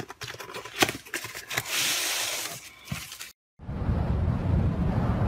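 Cardboard clock box being handled: a few taps and crinkles, then a steady scraping slide for about a second. It cuts off, and a swelling intro music bed with a deep low end starts.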